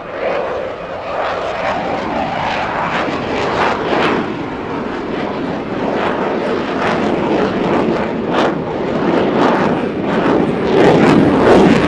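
Loud jet noise from an F-18 fighter's twin engines as it flies a dirty roll, a slow roll with gear and flaps down. The noise is rough and crackling and grows louder, peaking near the end.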